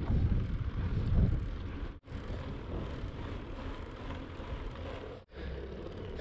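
Wind rumbling on the microphone in a steady low buffeting noise, dropping out briefly about two seconds in and again past the five-second mark.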